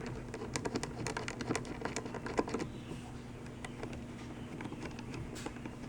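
Irregular light clicks and taps of a socket wrench and bolts as the loosened petcock bolts are backed out of a dirt bike's gas tank, busiest in the first half, over a steady low hum.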